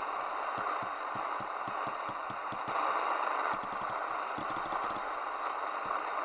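Midland Alan 8001 CB radio receiving an empty channel: a steady hiss of static from its speaker, broken by irregular crackling clicks that come in quick runs now and then.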